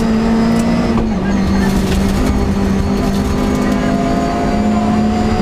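Rally car's engine heard from inside the cockpit, running steadily under load with road and tyre noise; its pitch drops slightly about a second in, then holds.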